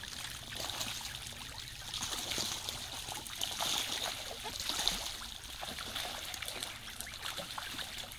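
A flock of ducks splashing and dabbling in shallow, muddy running water: a steady trickle and wash of water with many small splashes throughout.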